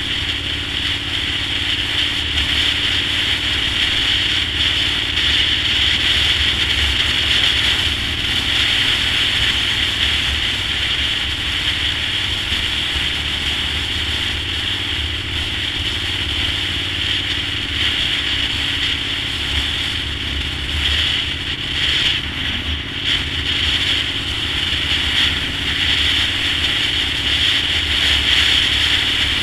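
Wind rushing over a bike-mounted camera's microphone, with the Honda VTR1000's V-twin engine running underneath at a steady road speed.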